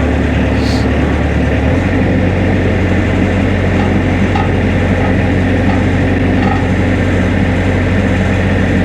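A lake boat's engine running steadily under way, loud and even, its low note shifting slightly about two seconds in.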